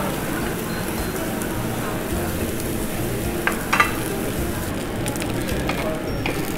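Meat sizzling steadily on a Korean barbecue tabletop grill, with a brief sharp sound a little past halfway.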